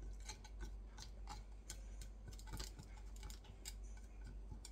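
Knife clicking and tapping against the bottom and sides of a glass baking dish while a tray of semolina cake is cut into pieces. The ticks are light and uneven, several a second.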